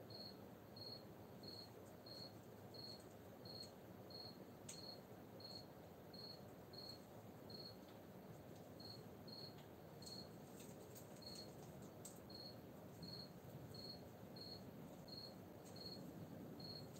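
A cricket chirping steadily and faintly, short high chirps at about three every two seconds.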